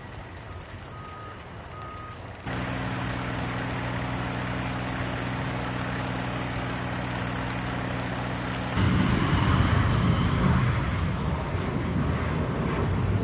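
An engine running with a steady low hum, cut off abruptly by a louder, rough low rumble with noise.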